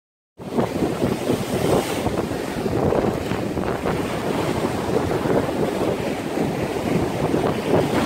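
Rough sea surf breaking and churning over shoreline rocks, with strong wind buffeting the microphone.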